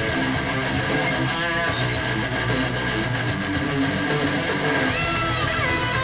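Electric-guitar rock instrumental played back through a pair of home-built transmission line speakers with 4-inch full-range titanium drivers. It has a dense, steady band sound, and a sliding lead guitar line comes in near the end.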